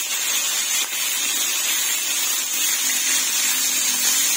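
Yellowfin fish steaks frying in shallow oil in a pan, a steady sizzling hiss.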